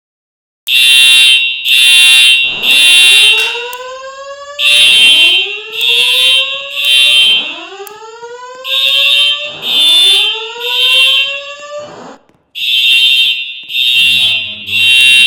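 Fire alarm system sounding: a horn blaring in the three-pulse temporal evacuation pattern, groups of three blasts with a pause between groups, overlaid for the first twelve seconds or so by slow rising whoop tones.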